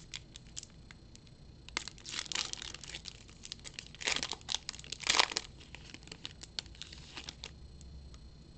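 Wrapper of a 2011-12 NBA Hoops trading-card pack crinkling and tearing as it is ripped open. The crackling comes in bursts about two, four and five seconds in, loudest near five seconds, then softer handling clicks.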